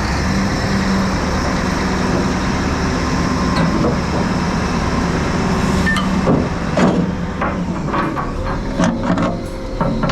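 A heavy diesel engine running steadily, with several short knocks in the second half.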